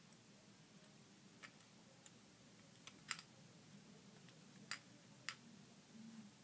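Near silence broken by a handful of faint, irregular clicks and taps from fingers handling a small hard object.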